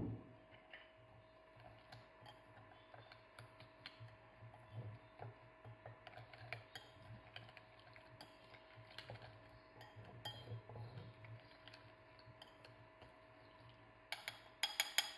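Metal spoon stirring and scraping an oily herb-and-spice marinade in a ceramic bowl, with soft clinks against the bowl. It opens with a single knock and ends with a quick run of louder clinks of the spoon on the bowl.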